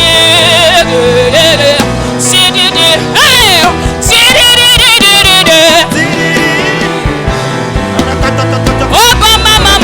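Live gospel worship music: singing with wavering, sliding vocal lines over steady instrumental accompaniment.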